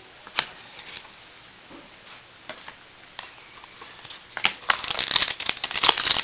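A few light handling clicks, then from about four seconds in the foil wrapper of a baseball card pack crinkling loudly as hands work it open.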